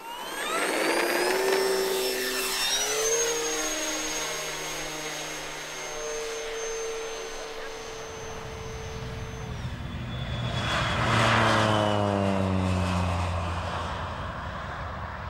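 Aircraft engine sound effect: a whine rising in pitch and then holding steady, followed by a deep rumble and a loud pass-by whose pitch falls, about ten seconds in.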